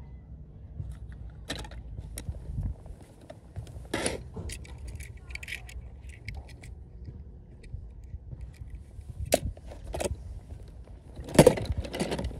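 Toy cars and toy monster trucks clattering against each other in a plastic tub as they are handled. The sound is a scattering of clicks and knocks, with the loudest clatter about a second before the end.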